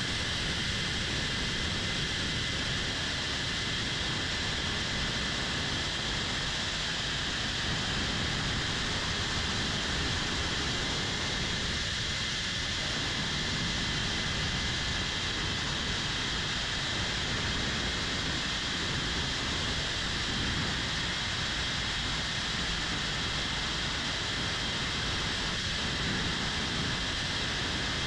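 A 3-inch cinewhoop FPV drone's brushless motors and ducted propellers, recorded by the onboard camera: a steady high whine over a rushing hiss that holds level throughout.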